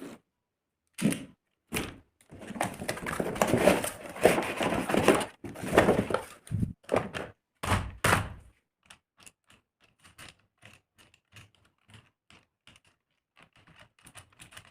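Handling noises from the RC car's packaging being opened and unpacked: knocks and clicks, with dense rustling and scraping in the first half, then faint scattered clicks.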